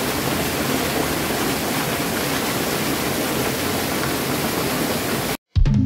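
Steady rush of falling water from the Velo de la Novia waterfall, cut off suddenly near the end as music begins.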